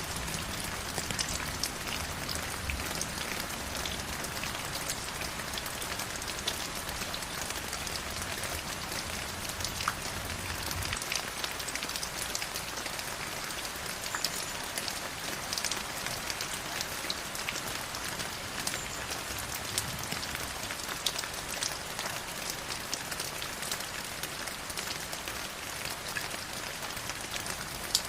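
River water flowing: a steady rushing with many small splashes and droplet patters. A faint low rumble underneath drops away about eleven seconds in.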